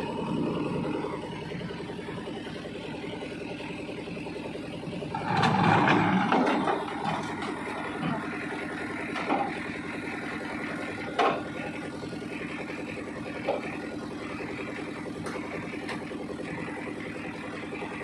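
Truck engine idling steadily, with a louder swell about five seconds in and a few sharp metal knocks in the second half as the loading ramp gear is handled.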